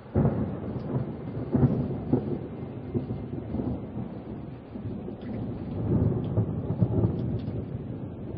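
Thunder breaks in suddenly and rolls on as a deep rumble over rain, with sharper cracks about one and a half and two seconds in and a second swell of rumbling around six to seven seconds.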